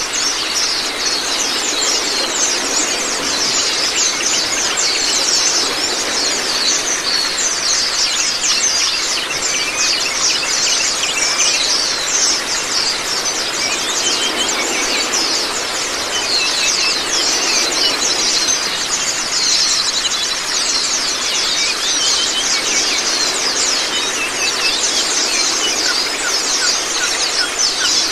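A flock of white-eyes (Zosterops) chattering without pause in dense, rapid high chirps, over a steady rush of running water.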